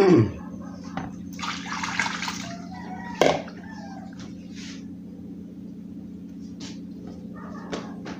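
Water briefly splashing into a kitchen sink for about a second, followed by a single sharp knock, over a steady low hum. The loudest sound is a falling swoop right at the start.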